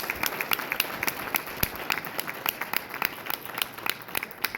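Audience applauding: many irregular claps that thin out near the end.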